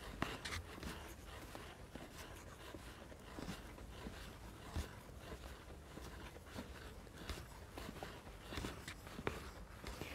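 Footsteps of a person walking, heard as faint, irregular light clicks over a low steady background rumble.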